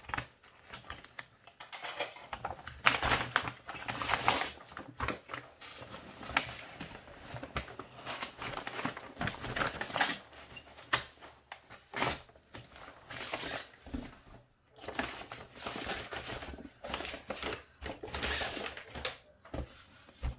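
A shipping package being torn open and its packaging handled: irregular rustling, crinkling and tearing with scattered sharp clicks and knocks.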